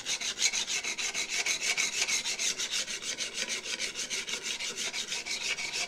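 Steel chip breaker being rubbed on the 300-grit side of a flat sharpening plate in rapid, even short strokes, several a second, giving a steady gritty rasp. The edge is being honed to work off the burr along it.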